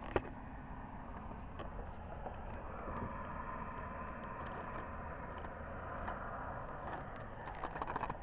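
Steady outdoor background noise, a low rumble that swells slightly in the middle, with a few faint clicks.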